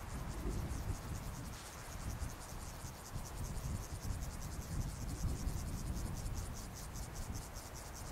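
Insects stridulating in a high, rhythmic pulsing of about five strokes a second, growing louder about halfway through, over a low steady rumble.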